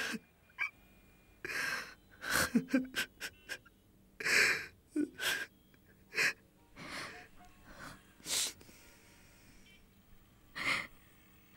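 A man sobbing: sharp gasping, sniffling breaths in short, uneven bursts with brief pauses between, and a few small voiced catches.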